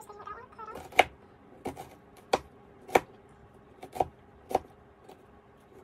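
Chef's knife chopping a red onion on a plastic cutting board: six sharp knocks of the blade striking the board, spaced about half a second to a second apart.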